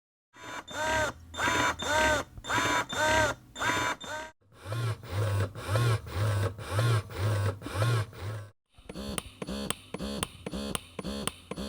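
Conventional electric breast pumps running one after another, three different pumps in turn. Each has its own rhythmic suction cycle: first a repeating rising-and-falling whir about one and a half times a second, then a lower pulsing hum at a similar pace, then a faster clicking rhythm.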